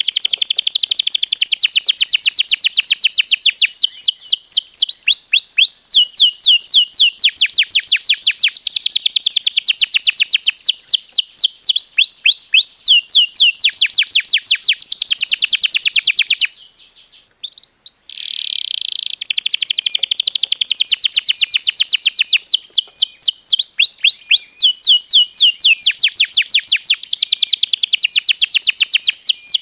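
Domestic canary singing a long, loud song of rapid rolling trills and quickly repeated notes. The song breaks off for about a second and a half around midway, then starts again.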